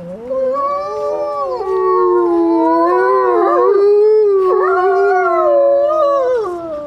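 Wolves howling in chorus: at least two long, overlapping howls at different pitches, held steady and then fading out near the end.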